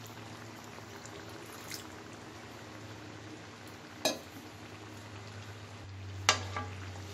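Pot of coconut milk and taro leaves simmering, a steady low bubbling hiss, with a sharp knock about four seconds in and a louder one just after six seconds.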